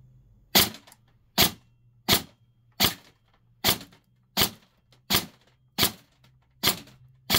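Cyma Platinum SR25 airsoft electric rifle firing ten single shots, about 0.75 s apart: a chronograph test string after a spacer was added on the spring guide to raise its power.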